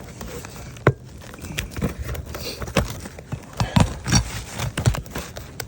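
Steel flat bar prying and scraping under asphalt roof shingles to get at the nails: a sharp knock about a second in, then irregular knocks and scrapes.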